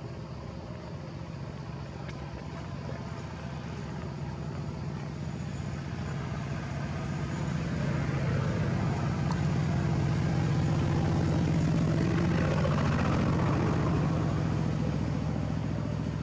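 A motor vehicle engine running steadily. It grows louder to a peak about twelve seconds in, then fades, like a vehicle drawing near and moving away.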